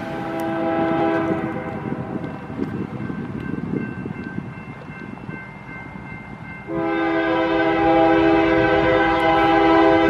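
Diesel locomotive air horn: a loud multi-note chord that starts suddenly about two-thirds of the way in and is held, from a GE C44ACCTE leading a freight train toward a grade crossing. Before it, train rumble under a fainter horn chord that dies away within the first second and a half.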